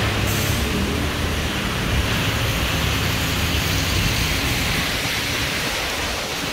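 Steady hiss of rain with traffic running on a wet road, over a low rumble.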